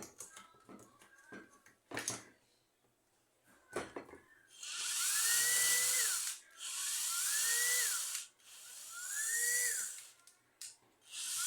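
Cordless drill backing out screws from a fan housing, preceded by a few clicks of handling. The drill then runs in three short bursts with a whine that rises as the motor spins up and falls as it stops, and a fourth burst starts near the end. The drill's battery is running low.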